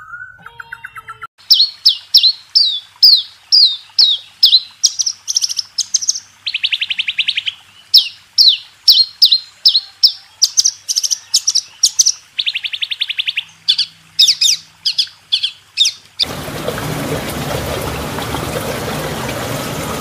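Birdsong: a long series of loud, sharply down-slurred whistled notes at about two a second, broken twice by a buzzy trill. About sixteen seconds in, the song gives way to a steady rough noise.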